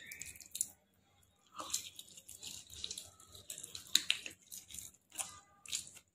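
Close-up eating sounds: chewing, and cooked chicken leg meat and rice pulled apart by hand, heard as a run of short, wet, crackly clicks, the sharpest near four seconds in.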